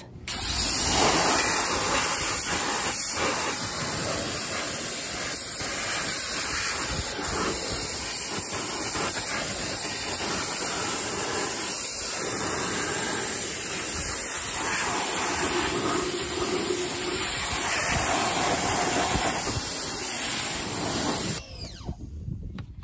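Pressure-washer jet of water spraying steadily against a car's alloy wheel and tyre, rinsing off the wheel cleaner; the spray stops shortly before the end.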